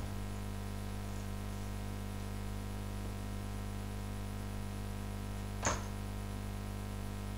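Steady low electrical mains hum with its overtones, carried in the recording, with one short sharp click about five and a half seconds in.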